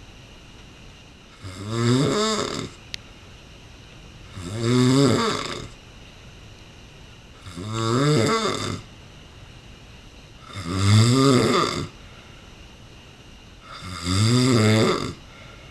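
A sleeping man snoring loudly: five rasping snores, one with each breath, about three seconds apart.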